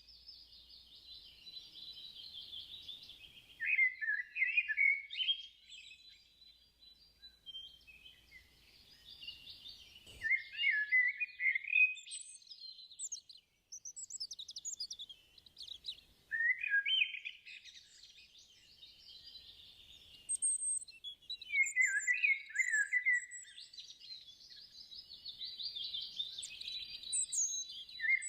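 European starling singing: a long, varied song of chattering, rattling notes and squeaky whistles, delivered in runs of a few seconds separated by short pauses.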